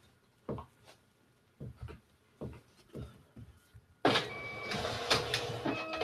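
Fujitsu ScanSnap iX1500 document scanner feeding a sheet through: after a few faint knocks, its feed motor starts about four seconds in and runs for about two seconds with a steady whirring noise and a few held whining tones that change pitch.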